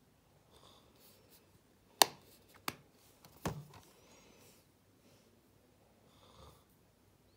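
Three sharp plastic clicks as a cosmetic gel tube and its cap are handled: the first, about two seconds in, is the loudest, and the other two follow within a second and a half. Faint rustling of hands comes before and after.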